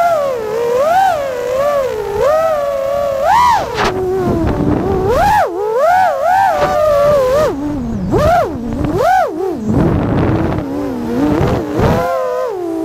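Five-inch FPV racing quadcopter (Armattan Rooster with Ethix Silk V4 2306 2345KV motors) whining in flight, the pitch swooping up and down with each throttle change. Several times the whine drops low, where the throttle is chopped, before climbing again.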